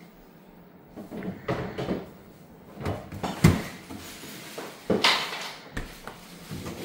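A run of knocks and clunks, like doors, panels or objects being handled and bumped. The loudest comes about three and a half seconds in, with another sharp one about five seconds in.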